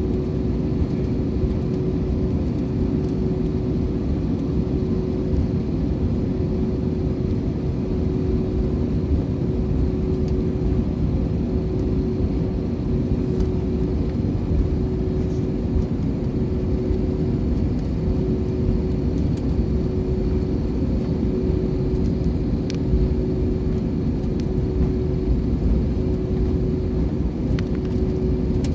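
Jet airliner noise heard from inside the passenger cabin around takeoff: a steady, loud engine rumble with one droning tone held over it.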